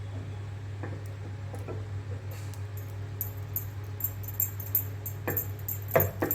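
Small metal pan of coconut oil and camphor being handled over a gas stove: light clicks and scrapes that start about two seconds in and grow stronger near the end, over a steady low hum.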